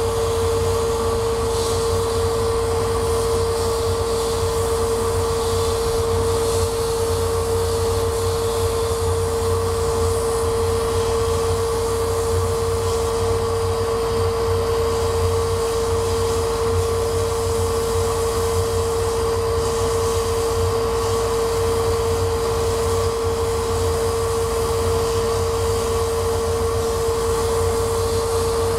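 Laser cutter running while it cuts a wooden sheet: a steady whir with a constant mid-pitched hum that does not change.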